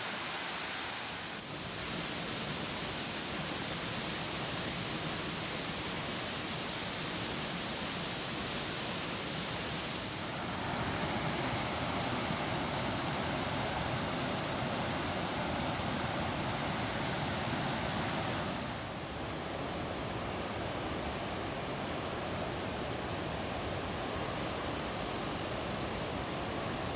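Waterfall's rushing water, a steady even noise with no speech; its tone shifts about ten seconds in, growing a little louder, and shifts again, duller, just before twenty seconds.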